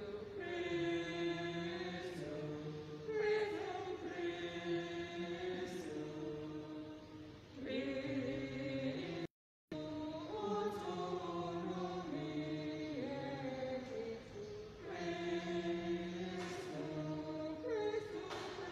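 Voices singing a slow liturgical chant in long held notes. The sound cuts out completely for a split second about nine seconds in.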